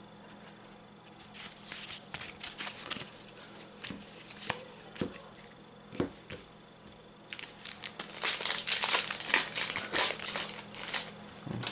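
Trading cards being set down and slid on a cloth playmat with scattered soft clicks. About halfway through comes a dense run of crinkling as a foil Yu-Gi-Oh! Ignition Assault booster pack wrapper is torn open.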